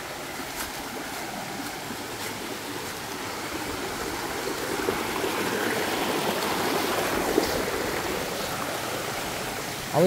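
Creek water rushing over rocks in a small cascade, a steady rush that grows louder in the middle and eases slightly near the end.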